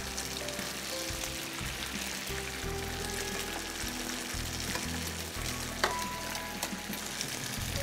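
Breaded chicken escalope sizzling and crackling as it shallow-fries in hot oil in a non-stick pan, turned with metal tongs. A single sharp clink about six seconds in.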